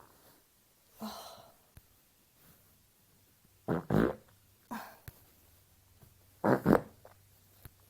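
Human farts: several short separate bursts, the loudest two double ones about four and six and a half seconds in.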